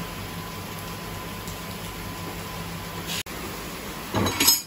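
Steady low hum of workshop machinery, then near the end a short, loud burst of air hiss with a clunk from a motorcycle tyre-changing machine, as its pneumatic clamp grips the wheel on the turntable.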